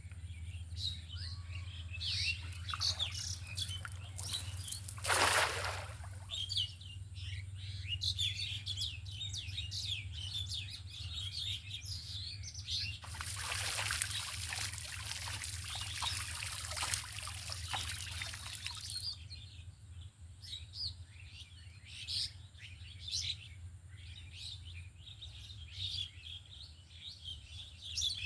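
Small birds chirping continuously over a steady low hum, with a short rush of noise about five seconds in and a longer rush of noise in the middle lasting about six seconds.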